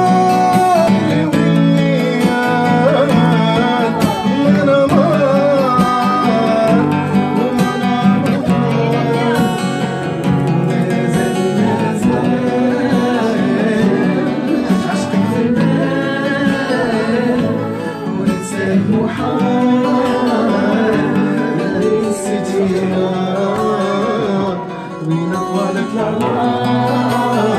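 Live music: a plucked lute played alongside a man singing long, ornamented, wavering melodic lines.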